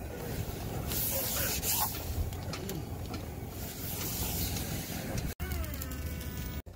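Hands sweeping over an 18-ounce vinyl banner, pressing it onto double-sided mounting tape: two hissing rubs about a second long each, over a low outdoor rumble. A brief falling squeal near the end.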